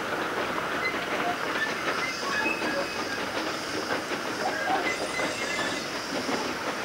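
Narrow-gauge steam train running along the line: a steady dense rattle and clicking of locomotive and carriages on the track, with short high squeaks scattered through it.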